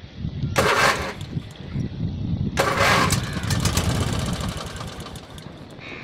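An engine starting: two loud bursts about half a second and two and a half seconds in, then running with a rapid ticking that slowly fades.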